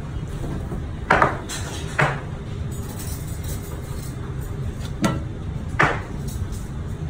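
Boning knife scraping and trimming the rib bones of a tomahawk beef steak on a cutting board, giving four short, sharp scrapes and knocks, the first about a second in and the last about six seconds in. Underneath is a steady low hum of the kitchen's extractor hood.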